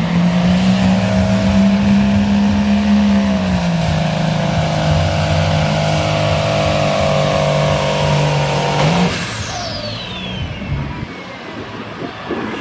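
Diesel pickup truck pulling a weight-transfer sled at full throttle: the engine runs flat out under a high turbo whistle, its pitch sagging a little about three seconds in as the sled bears down. About nine seconds in the throttle comes off, the engine drops away and the turbo whistle falls steeply as it spools down.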